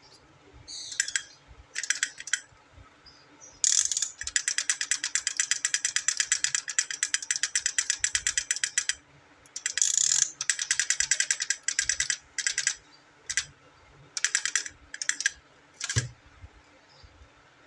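A plastic toy's gear mechanism clicking rapidly like a ratchet, in runs: a few short bursts, then a long run of about ten clicks a second lasting some five seconds, another run of about two seconds, and more short bursts near the end.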